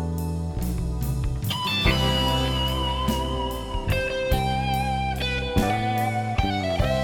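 Background music: guitar playing held notes that step and bend in pitch over a steady bass and a regular beat.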